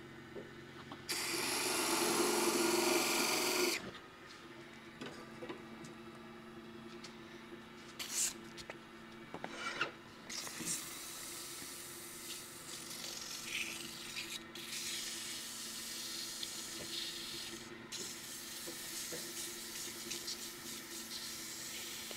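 Sandpaper held against a small turned wooden snowman hat spinning on a running wood lathe: a loud rasping stretch about a second in lasting roughly three seconds, a few short scrapes, then lighter, steadier sanding from about ten seconds in until near the end, over the lathe's steady hum.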